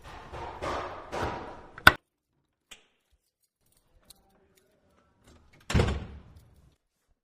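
Scraping and rustling handling noise ending in one sharp click, a few faint ticks, then a single heavy thud near the end.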